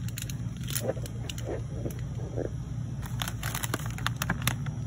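Crackling of a plastic snack bag being grabbed off the shelf, a quick run of crinkles late on, over a steady low hum.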